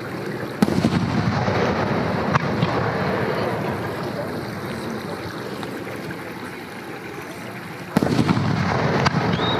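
Aerial firework shells bursting: a sharp boom about half a second in and another near the end, each followed by a long rumbling echo, with a smaller crack about two seconds in.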